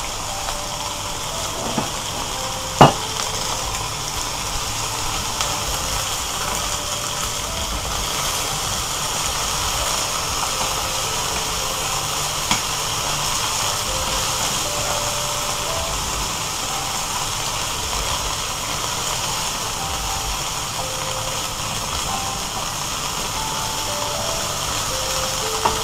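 Langoustines and cherry tomatoes sizzling steadily in olive oil in a frying pan. A single sharp tap, the loudest sound, comes about three seconds in, with a fainter one later.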